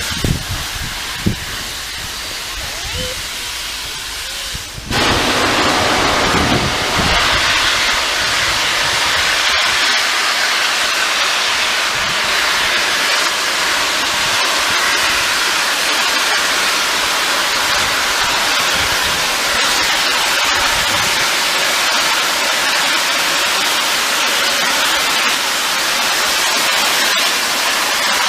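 Peppercorn A1 steam locomotive 60163 Tornado venting steam: a loud, steady hiss that starts suddenly about five seconds in and holds without a break.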